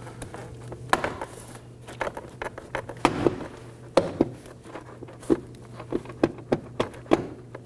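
Plastic retainer clips of a Toyota Camry's front door trim panel popping loose as the panel is pulled away from the door, about a dozen sharp, irregular clicks and snaps.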